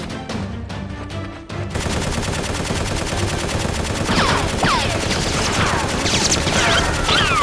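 Background music with a beat gives way, about two seconds in, to sustained rapid automatic gunfire sound effects, joined from about four seconds by repeated short falling whistles.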